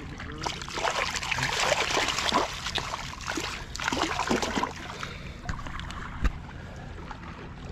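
Brown trout thrashing in a landing net at the water's surface, irregular splashing and dripping for the first few seconds, then settling. A single short knock near the end.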